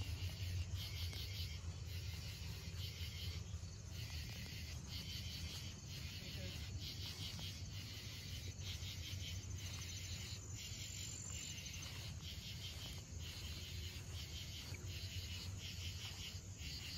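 Insects chirping in short, regular bursts about once a second, with a thin steady trill joining near the middle, over a steady low rumble.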